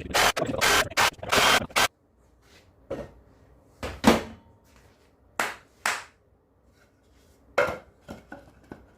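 Jigsaw cutting a wooden 2x4 in short bursts for about two seconds, then stopping suddenly. Several separate knocks of wood on wood follow.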